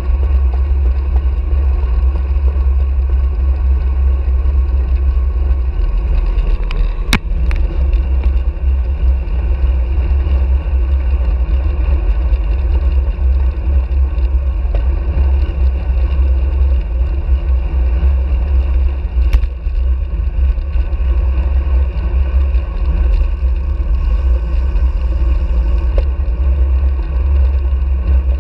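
Wind buffeting the microphone of an action camera on a moving road bike, a heavy, steady low rumble with road and tyre noise underneath. A few sharp clicks cut through, about 7 s in and again about 19 s in.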